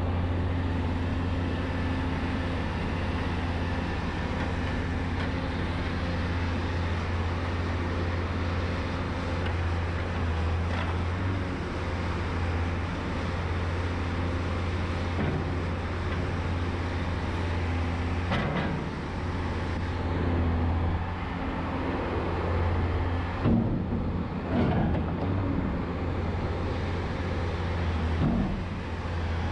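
Heavy diesel engine of a Volvo A30C articulated hauler running steadily while a log loader fills its bunk, with a few short knocks in the second half as logs are set down.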